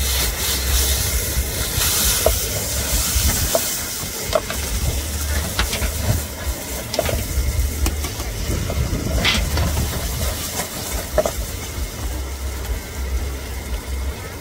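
Cubed steak sizzling in a metal pan over a high stove flame, a steady hiss throughout, with several sharp metallic clinks as the pan and tray are handled.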